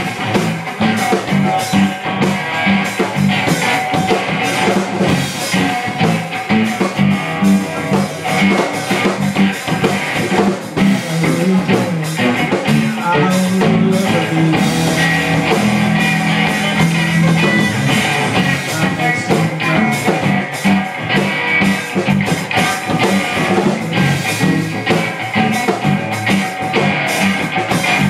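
Live rock band playing loudly: electric guitar through Randall amps, electric bass and drum kit.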